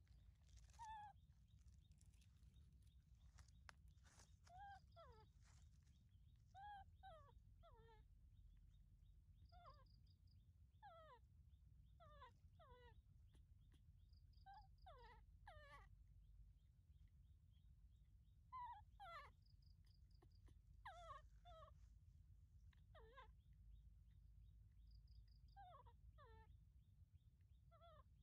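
Baby macaque giving soft, high whimpering cries, each call sliding down in pitch, in clusters of two or three every couple of seconds.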